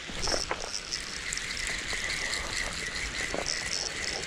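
Spinning reel being cranked, a steady thin whirr starting about a second in and stopping near the end, over the hiss of flowing water, with a few clicks of handling early on.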